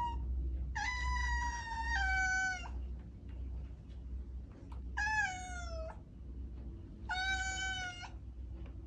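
Domestic cat meowing three times, in long drawn-out meows over a steady low hum. The first meow holds one pitch and then drops partway through. The second slides downward in pitch.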